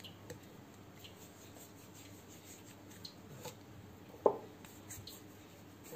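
Hands quietly working kneaded dough, soft rubbing and small taps as a dough ball is pinched off and handled, with one sharp knock about four seconds in.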